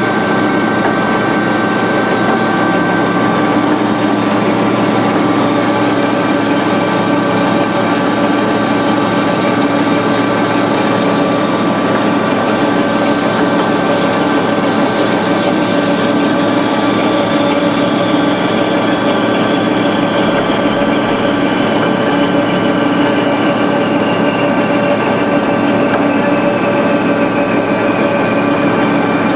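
DoAll C5A automatic horizontal band saw running: a steady mechanical hum with several constant tones, and a higher whine that slowly falls in pitch over the second half.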